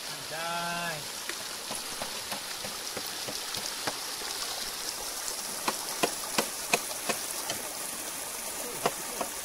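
River water running steadily over stones. A short vocal sound comes about half a second in, and a run of sharp clicks or taps, about three a second, falls in the second half.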